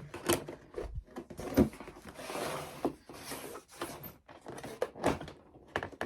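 Hands working with adhesive tape and foam board: a rustling, scraping stretch as tape backing is pulled, broken by a few light knocks and taps.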